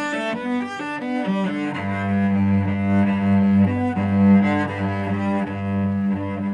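Solo cello played with the bow: a run of quick notes, then from about two seconds in a low note held steadily beneath a melody played on a higher string.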